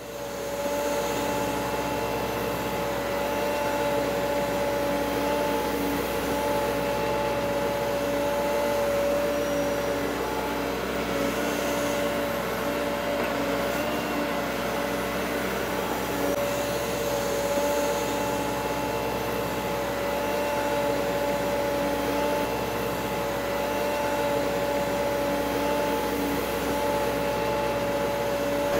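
Multirotor camera drone's motors and propellers whining steadily: a constant hum with a fixed pitch over rushing air noise.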